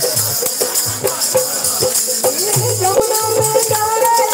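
Live devotional bhajan music: a harmonium holding sustained notes from about halfway in, over steady drum beats and shaken metal jingles.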